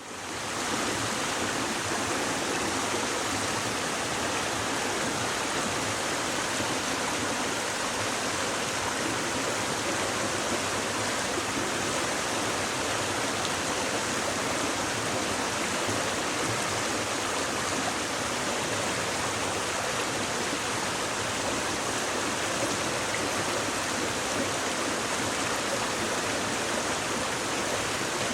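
Shallow stream babbling steadily, a continuous rush of running water that fades in at the very start.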